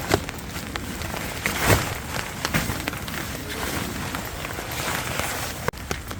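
Rain pattering on tent fabric: a dense crackling patter with scattered sharp taps and one louder knock about two seconds in.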